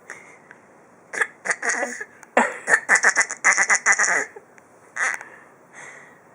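A baby's raspy, coughing noise that sounds like throat-clearing and is taken for a laugh. A few short bursts are followed by a quick run of about eight in under two seconds, then one more and a fainter one near the end.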